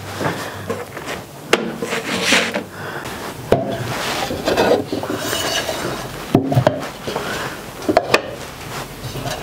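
Earthenware dishes being handled on a wooden shelf: a few sharp knocks and clatters with rubbing and scraping between them.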